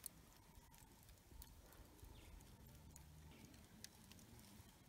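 Near silence: faint outdoor background with a few soft, scattered clicks.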